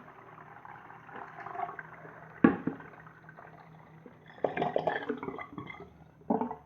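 Homemade clay siphon-jet toilet flushing with water gurgling and splashing down through the bowl. A sharp knock comes about two and a half seconds in, and bursts of splashing and gurgling follow near the end.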